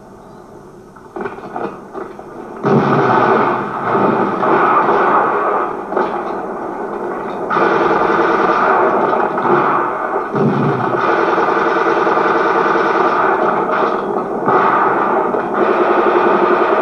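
Gunfire and battle noise from a war-film soundtrack. It starts faint and becomes loud and dense about three seconds in.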